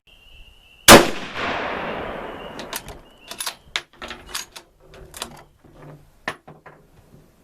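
A single shot from a Marlin XS7 bolt-action rifle in 7mm-08 about a second in, its report echoing away over a second or two. It is followed by a string of sharp metallic clicks and clanks as the bolt is worked.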